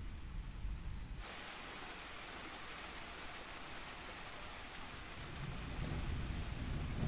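Thunderstorm: a steady hiss of rain that sets in abruptly about a second in, with a low rumble of thunder building near the end.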